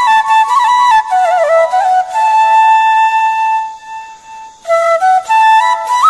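Background music: a solo flute melody moving in short stepped notes, with one long held note in the middle and a brief pause about four seconds in before the tune resumes.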